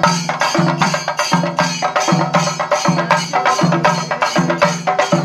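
A group of chenda drums, Kerala cylindrical barrel drums, beaten with sticks in a chenda melam ensemble: a fast, dense run of stick strokes with a deeper beat recurring under it.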